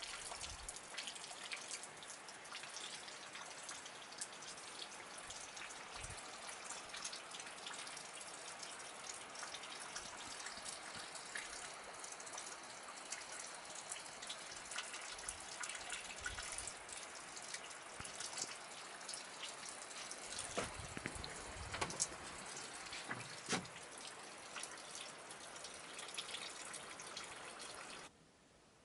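Sleet and rain falling through forest: a steady hiss with many small ticks of drops landing, and a few low thuds. Near the end it cuts to much quieter.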